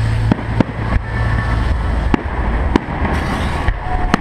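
New Year fireworks salute going off: several sharp bangs, a second or so apart, over a steady low rumble.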